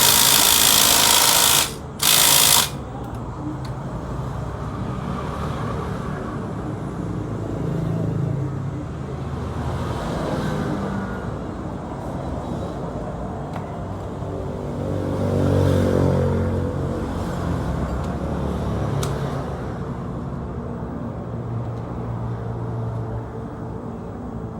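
Yamaha Exciter 135's single-cylinder four-stroke engine running, with a loud harsh rattle for the first two or three seconds that cuts off suddenly. The engine then settles to a steady idle, with a few brief rises in revs around the middle.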